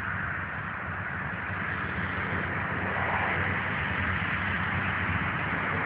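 Steady outdoor background noise: an even hiss with a low hum beneath it and no distinct events.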